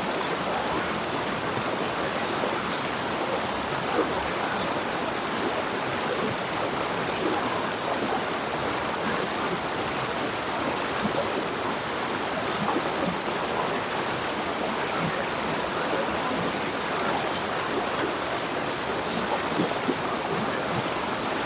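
River water flowing and splashing over rocks in a steady rush, with small irregular splashes throughout.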